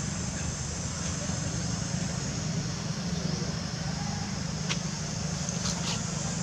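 Steady outdoor background: a low rumble like a distant running engine under a constant high hiss, with a few faint clicks about two-thirds of the way through.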